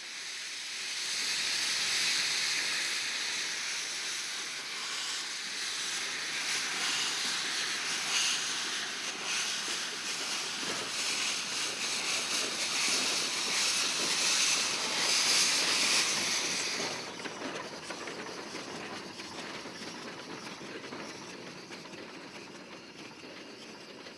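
Shay geared steam locomotive letting off a loud, steady hiss of steam, which drops sharply about seventeen seconds in and then fades.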